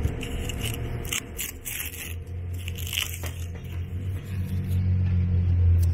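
Paper straw wrapper crinkling and tearing, with small clicks and scrapes as a straw is pushed into a plastic-lidded cup. Under it a low steady hum grows louder through the second half.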